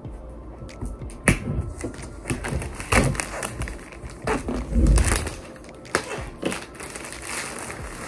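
Clear plastic shrink-wrap being torn off a cardboard box by its pull tab and peeled away: crackling and rustling film, with a few louder knocks as the box is handled.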